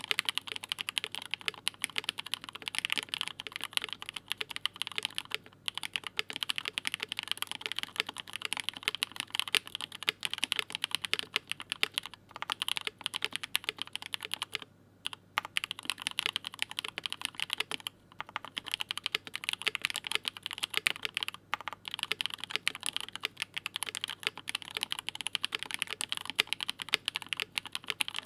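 Fast typing on a KBD67 Lite R2 custom mechanical keyboard fitted with lubed Durock POM linear switches and GMK keycaps: a dense run of clacky keystrokes, broken by a few short pauses.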